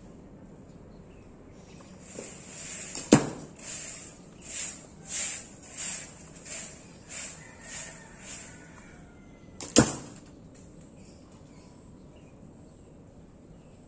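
Two sharp knocks about six and a half seconds apart from an archer handling a horsebow and arrow. Between them comes a run of about eight soft swishes that fade away.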